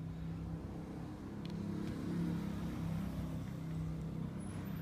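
A steady low mechanical hum, like a motor or engine running, with a faint tick about a second and a half in.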